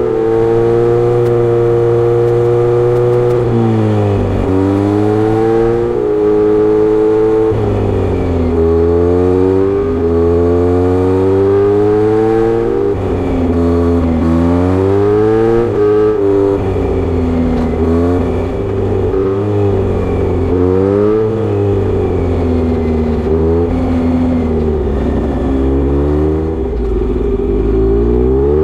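A Kawasaki Z900RS's inline-four running through a short aftermarket Misty Kintaro muffler, accelerating and shifting up. The engine note rises and drops sharply at each shift, and it eases off and pulls again several times.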